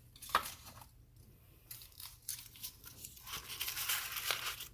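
Packaging being crinkled and torn by hand: a sharp click about a third of a second in, then crackly rustling through most of the remaining seconds.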